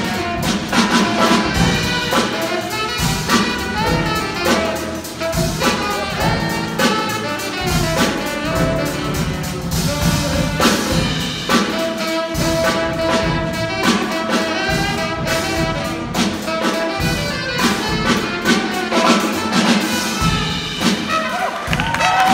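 Small jazz combo playing live: a trumpet carries the line over piano and a drum kit, with alto saxophone also on stage.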